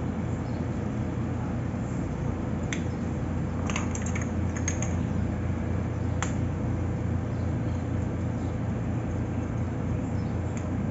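Spice jars clicking and tapping as they are handled and shaken over a plastic mixing bowl: a handful of short clicks between about three and six seconds in. A steady low hum runs underneath.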